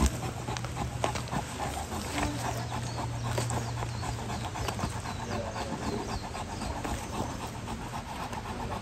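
Bernese Mountain Dog panting quickly and evenly, close to the microphone.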